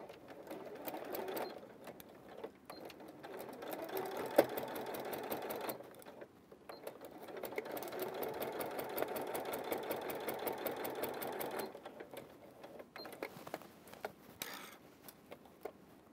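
Electric domestic sewing machine stitching in stop-start runs: a short burst, then about three seconds, a pause, then about five seconds, with the needle's rapid even ticking. This is the pass that sews down the folded edge of bias binding. After the last run only a few faint clicks are heard.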